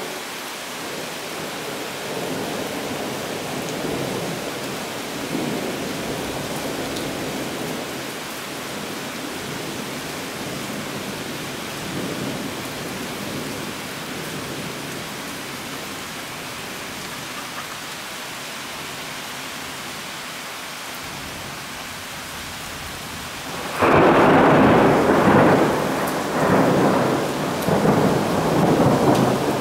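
Steady hiss of heavy summer rain with low, uneven rumbles of thunder; about six seconds before the end a loud thunderclap breaks in suddenly and rumbles on in waves.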